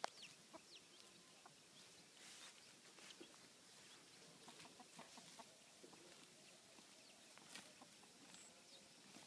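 Faint farmyard sounds: chickens clucking, with short high bird chirps scattered throughout.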